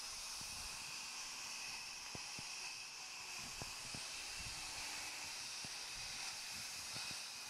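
Steady hissing noise of ongoing work machinery at the site, with a faint high whine held through it and a few soft low knocks.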